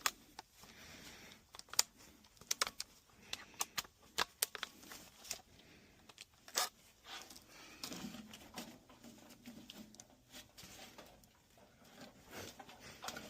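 Irregular small clicks and plastic-and-wire handling noises as wire nuts are fitted and twisted onto spliced electrical wires.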